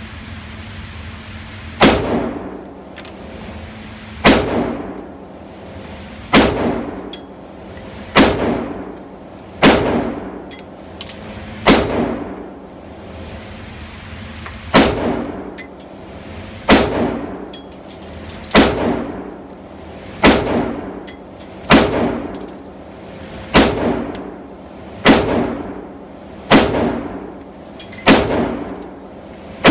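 Bushmaster ACR semi-automatic rifle in 5.56/.223 firing slow, deliberate single shots, about one every one and a half to two seconds, the first about two seconds in. Each shot rings and echoes off the concrete walls of an indoor range.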